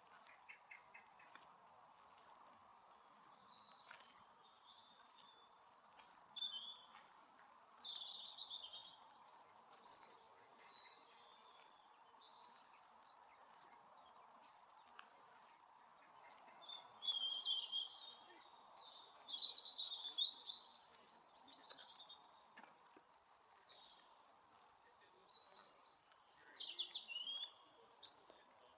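Songbirds singing in bouts of short, varied chirping phrases. The loudest bout comes about two-thirds of the way through, over a faint steady background hiss.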